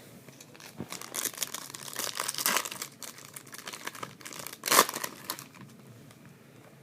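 Trading card pack wrapper crinkling and tearing as it is opened: a run of crackles, the loudest about five seconds in.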